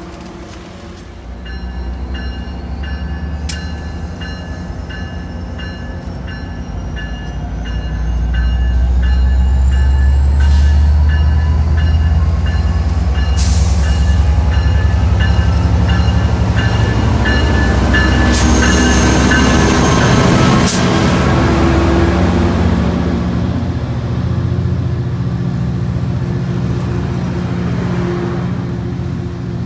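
EMD F59PHR diesel locomotive drawing a passenger train into a station, its bell clanging at a steady beat until about twenty seconds in. The deep engine rumble grows much louder as the locomotive comes alongside, then eases as the bilevel coaches roll past.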